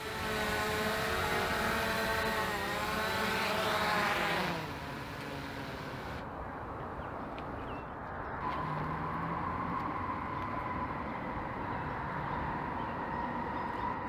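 DJI Mavic Air 2 quadcopter's propellers buzzing as it hovers and sets down on its landing pad, the pitch rising before the motors cut out about four and a half seconds in. After that, only steady outdoor background noise remains.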